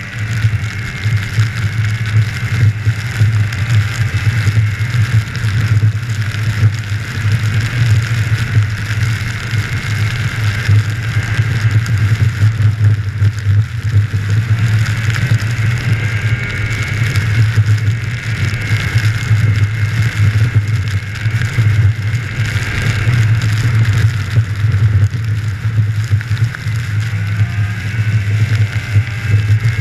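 Snowmobile engine running steadily under way, heard close up from the rider's seat: a loud, constant drone with a fainter whine above it that rises and falls a little with speed.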